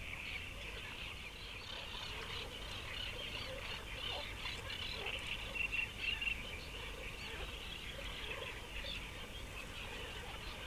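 A dense chorus of small birds chirping and calling without pause, with a few lower calls mixed in.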